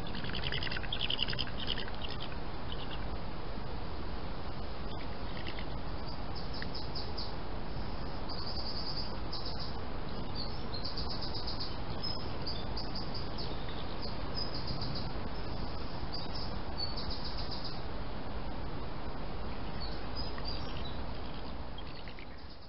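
Small birds singing and calling over a steady hiss: short chirps and rapid trills, repeated every second or two.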